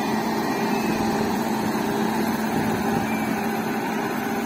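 WAP-7 electric locomotive passing close by: a steady hum from its machinery over the even rolling noise of the train.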